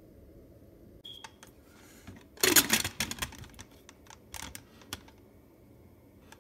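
Stainless-steel pressure cooker lid being fitted and locked onto the pot: a burst of clattering metal and plastic clicks and knocks about two and a half seconds in, with a few lighter clicks before and after.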